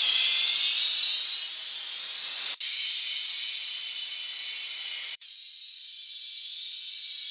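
Software synthesizer noise patch (Xfer Serum 2 preset): a bright, steam-like hiss played three times in a row, each take about two and a half seconds long with a sharp cut between them. The first take has faint whistling tones gliding upward, and the second fades away as it goes.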